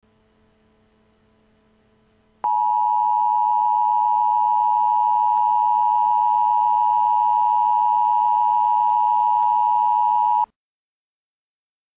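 Emergency Alert System attention signal: a loud, steady electronic tone that comes in suddenly about two and a half seconds in, holds for about eight seconds and cuts off abruptly, ahead of the spoken tornado warning. A faint hum comes before it.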